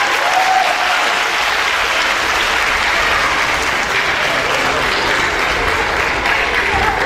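An audience applauding: dense, steady clapping from a large crowd.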